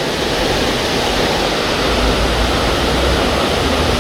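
Steady rush of water from a small creek waterfall.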